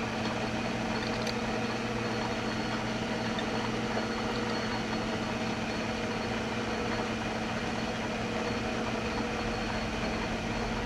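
Metal lathe running at a steady speed, its motor and drive giving a continuous even hum.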